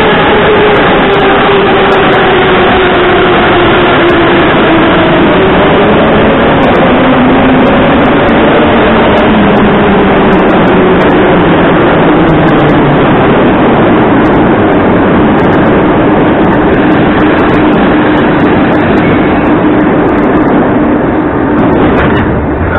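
81-717/714-series metro train pulling into a station: loud rumble of wheels on rail with several whining tones that slowly fall in pitch as the train slows, settling into a steadier hum. The level eases off near the end.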